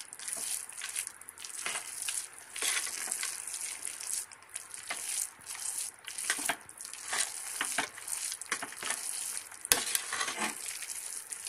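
A perforated metal spoon stirring and scraping thick carrot halwa in a metal pot, folding in chopped nuts and raisins, in irregular strokes with small knocks against the pot.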